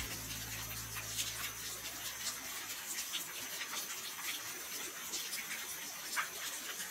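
Water pouring from stone spouts into basins: a steady splashing rush with small splashes flicking through it.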